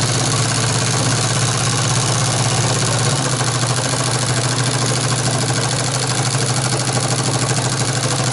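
Industrial sewing machine running at high speed, stitching a name freehand onto fabric with a fast, even needle rhythm over a steady motor hum.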